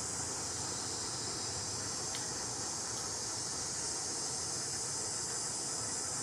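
Steady high-pitched drone of an insect chorus with an even hiss beneath it, and one faint click about two seconds in.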